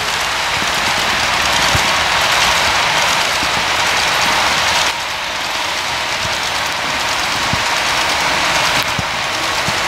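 HO-scale model freight train of hopper cars rolling along the track: a steady hissing rumble of wheels on rail, with a few faint clicks, over the background noise of a busy hall. The level drops slightly about five seconds in.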